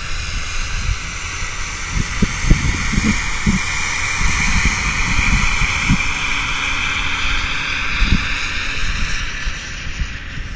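Farm tractor engine passing close by, growing to its loudest about halfway through and then fading as it moves off, with gusts of wind thumping on the microphone.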